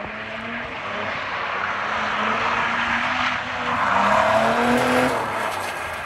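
Drift car sliding through a corner, its engine revving hard while the rear tyres squeal and scrub on the asphalt. The tyre noise swells to its loudest about four seconds in as the car passes close, then eases as it pulls away.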